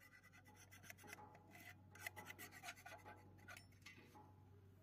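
Near silence: faint scratchy rubbing and small clicks over a low steady hum.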